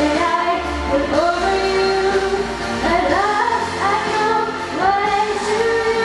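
A young female singer sings a melody into a handheld microphone over instrumental accompaniment, with pitch glides and a long held note near the end.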